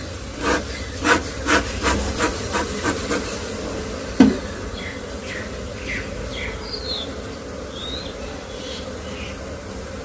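A beekeeper's bellows smoker puffs smoke over a wooden box hive of Asian honey bees (Apis cerana), about two puffs a second for the first three seconds. A single knock follows about four seconds in, and the bees buzz in a steady hum throughout.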